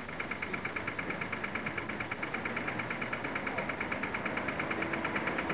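Tram running along its track with a low rumble, overlaid by a rapid, even, high-pitched ticking that keeps the same pitch and fades out near the end.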